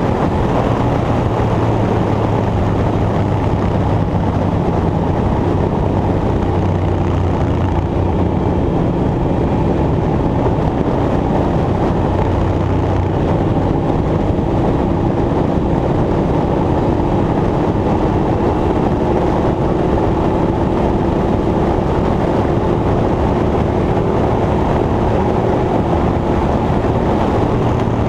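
Steady, loud engine or machinery noise with a low hum, joined in the second half by a higher hum that slowly climbs in pitch.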